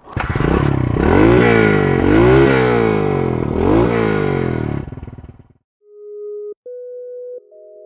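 Honda RTL 250S trials bike's four-stroke single-cylinder engine being revved through its big HRC rear silencer, about three throttle blips rising and falling in pitch, then cutting off. About six seconds in, steady electronic tones begin.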